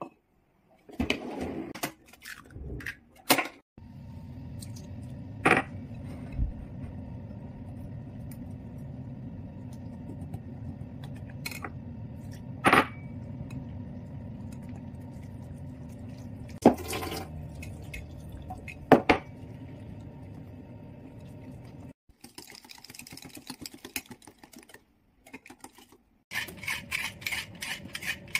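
Kitchen prep sounds with no talk: a few sharp clinks over a steady low hum, then near the end a fast, rhythmic scraping as a potato is peeled with a hand peeler.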